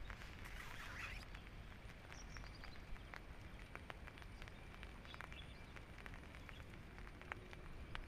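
Faint outdoor ambience: a low rumble of wind on the microphone with scattered light ticks like falling drops, a brief rustle about half a second in, and a few faint bird chirps.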